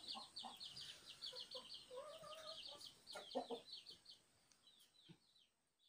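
Faint bird chirping: a rapid run of short high chirps that thins out after about three seconds, with a lower drawn-out call about two seconds in.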